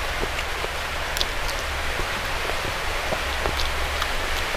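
Steady rain falling, an even hiss with scattered small ticks of drops.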